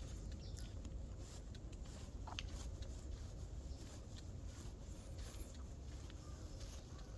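Bare feet stepping on a soil path: soft, faint footfalls over a low steady rumble, with one short high chirp about two and a half seconds in.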